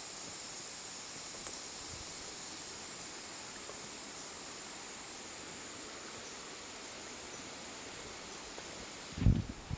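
Steady rushing water with a constant high insect drone over it. About nine seconds in, a brief loud low rumble hits the microphone.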